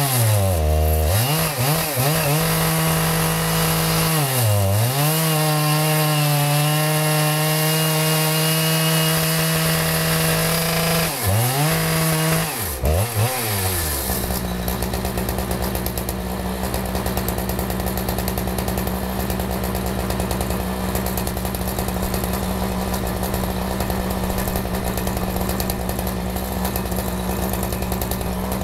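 Two-stroke chainsaw running under load, milling a maple log. Its engine speed dips and recovers a few times in the first half as the cut loads it, then holds steady for the second half.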